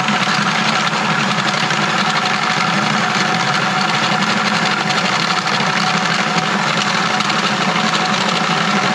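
Cordless drill spinning a drum drain auger in reverse, running steadily as it winds the cable back out of the drain pipe.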